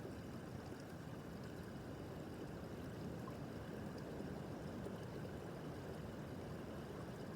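Small brook babbling steadily over stones, a constant low, rushing water sound.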